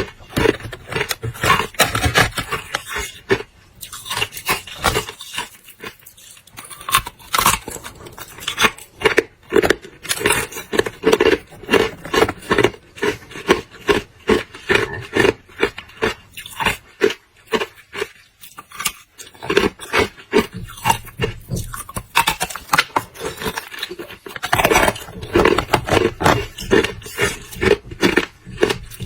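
A person biting and chewing hard clear ice close to the microphone: loud, irregular crunching and cracking, several crunches a second, with a couple of short pauses.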